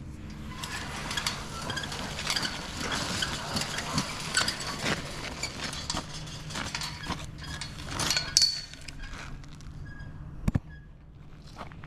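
Footsteps and handling noises: irregular crunching, clinks and knocks over a faint steady low hum, with a louder clatter about eight seconds in and a single sharp knock about ten and a half seconds in.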